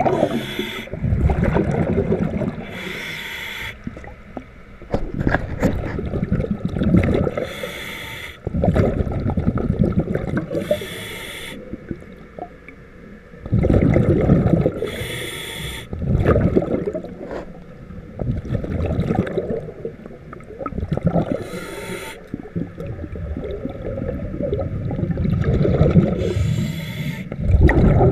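Underwater: a diver's scuba regulator breathing, with a hissing burst of exhaust bubbles every three to five seconds, over the rough, uneven scraping of shell growth being scraped off a boat's propeller pod.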